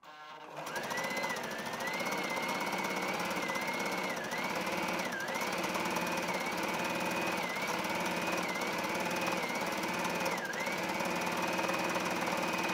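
Brother GS2700 home sewing machine stitching a decorative stitch at a steady speed: a fast needle clatter under a high motor whine, starting just after the opening. The whine dips briefly several times as the speed eases off for a moment.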